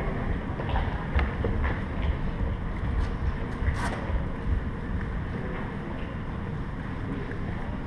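Steady low rumble with a windy hiss, like wind noise on the microphone, broken by a few short sharp clicks and knocks.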